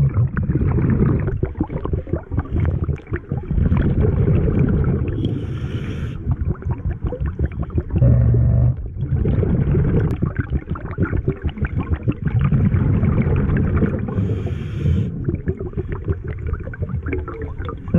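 Underwater sound of scuba diving: a muffled low rumble with dense crackling of regulator bubbles, and two brief hisses about five and fourteen seconds in.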